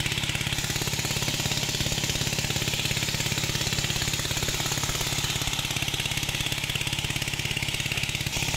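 Engine of a pond-dewatering pump running steadily with a fast, even beat, drawing the water out of the pond.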